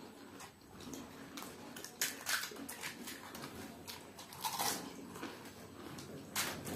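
Pani puri being eaten fast: crisp hollow puri shells crunching and the spiced water slurped in, in irregular crunches and slurps.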